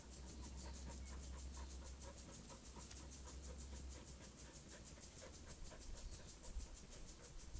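A griffon bird dog panting quickly and steadily, about three breaths a second.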